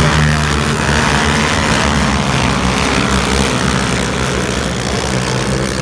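A pack of racing quad ATVs running hard together just after the race start, their engines blending into a steady loud drone.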